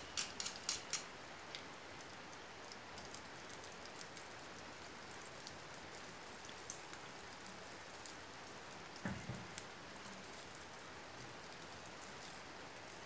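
Konda kavum (rice-flour batter) deep-frying in hot oil: a steady sizzle with scattered crackles, a quick run of pops in the first second, and a dull knock about nine seconds in.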